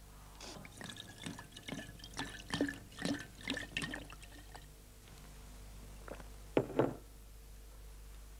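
Port wine glugging and gurgling in a glass bottle as it is drunk straight from the neck: a run of irregular gulps for about four seconds, then a brief louder sound about six and a half seconds in.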